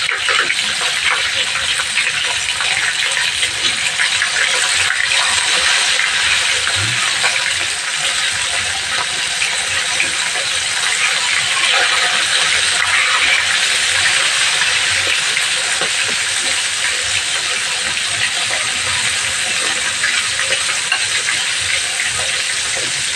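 Chicken pieces frying in hot oil in a wok: a steady loud sizzle full of fine crackling pops as the pieces are laid into the oil and bubble.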